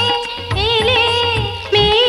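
A woman singing a Bengali song with instrumental accompaniment, her voice wavering and sliding through ornaments over a steady low drum beat.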